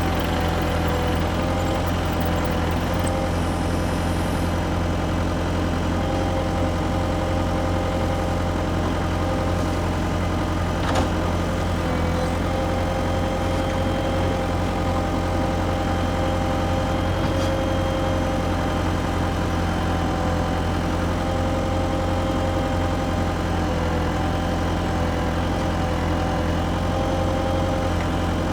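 Engine idling steadily: an even low drone with a few steady tones over it, and one brief click about eleven seconds in.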